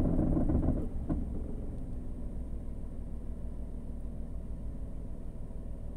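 Steady low rumble of a car's running engine heard from inside the cabin, louder in about the first second, with one faint click about a second in.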